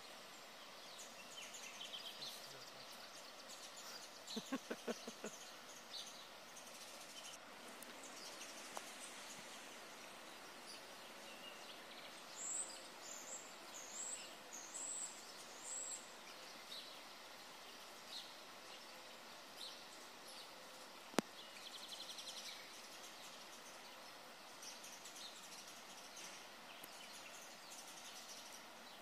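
Wild birds chirping over a steady background hiss, with a row of about six high chirps a little under halfway through. There is a quick run of pulses about four seconds in and one sharp click about two-thirds of the way through.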